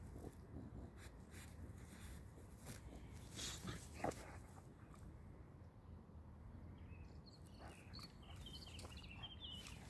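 Quiet outdoor ambience with a low, steady wind rumble on the microphone. There is a brief soft sound about four seconds in, and faint bird chirps near the end.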